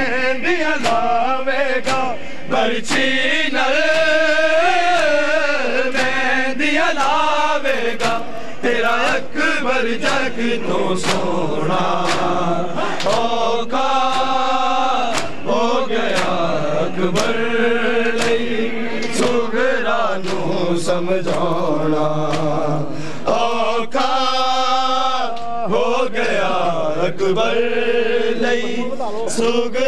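Male voices chanting a Punjabi noha lament, the melody rising and falling in sung phrases. Through it runs a steady rhythm of sharp slaps: open hands striking bare chests in matam, in time with the chant.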